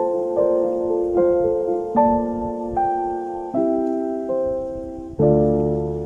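Background piano music: slow, soft chords with each note ringing and fading, and a deeper, fuller chord coming in about five seconds in.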